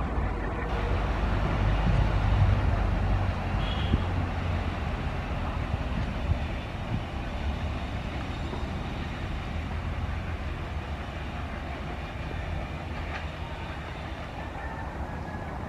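Passenger train rolling past: a steady rumble of wheels on the rails with a few faint clicks, slowly fading.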